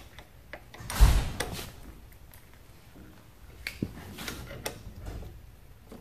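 Small metallic clicks and light knocks of a hand tool working at a motorcycle's rear brake caliper, with one louder thump about a second in.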